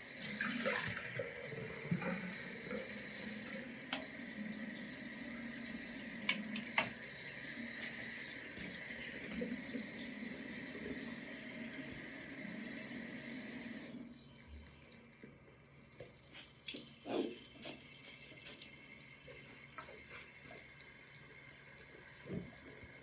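Bathroom sink tap running, water splashing as sneakers are rinsed under it, with a few knocks of the shoe against the basin. The water cuts off suddenly about two thirds of the way through, leaving scattered small knocks and handling sounds.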